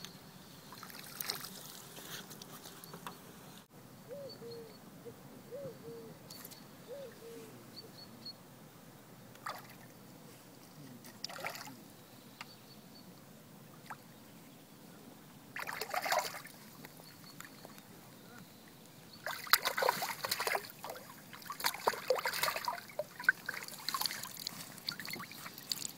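Hooked common carp splashing and thrashing at the water's surface close to the bank, in dense bursts from about twenty seconds in, after a shorter splash about four seconds earlier.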